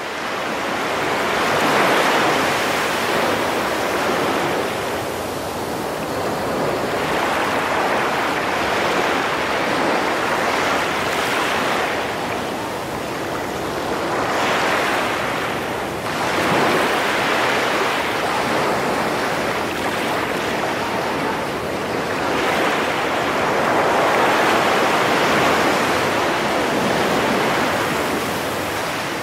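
Ocean surf washing in and out, a steady rush that swells and ebbs slowly every several seconds, fading in at the start.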